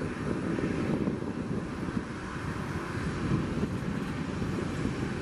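Jet airliner engines running at low power on the ground, a steady rumble.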